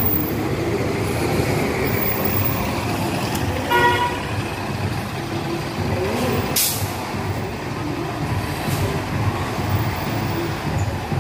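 City transit bus engine running as the bus pulls away through street traffic, with one short vehicle horn toot about four seconds in and a brief sharp hiss a couple of seconds later.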